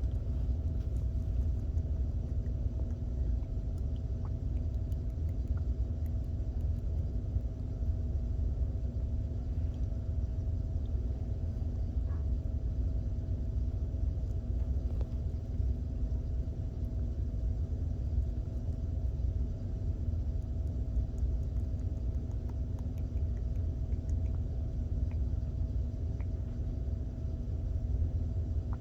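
Steady low rumble with a constant faint hum, unchanging throughout, and a few faint soft clicks here and there.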